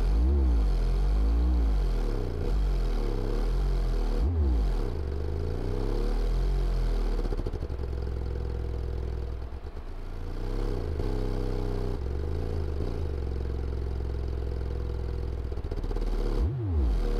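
Sundown Audio SD4 8-inch shallow-mount prototype subwoofer playing free air on a test bench: deep bass tones that glide up and down in pitch, with a brief dip in level about halfway through.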